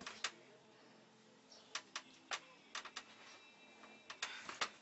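About ten sharp, irregular clicks and taps, spaced unevenly, over faint room noise.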